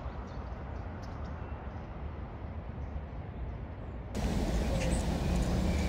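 Steady outdoor background noise, mostly a low rumble. About four seconds in it cuts to a louder outdoor ambience with a steady low hum and a few faint high ticks.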